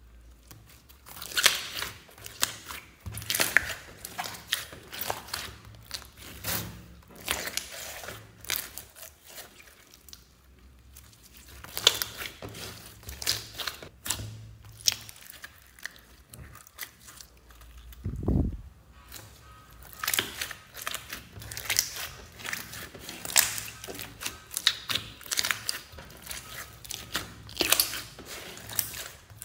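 Hands kneading and squeezing thick glitter slime: irregular runs of sticky clicks and pops, with pauses in between. About two-thirds of the way through comes one short low sound that falls in pitch.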